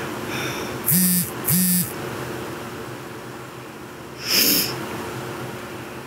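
A woman sniffling through her nose, the way one does when crying: two short sniffs with a slight hum about a second in, and one more sniff a little past four seconds.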